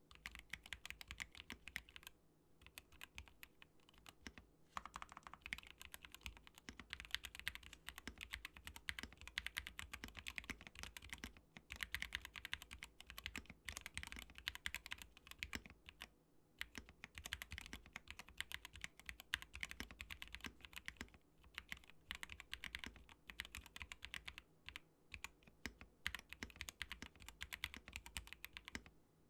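Fast typing on a mechanical keyboard with Gateron Black Ink V2 linear switches, built as a GMMK Pro with a polycarbonate plate and PE foam. It is a steady stream of key clacks with a few short pauses.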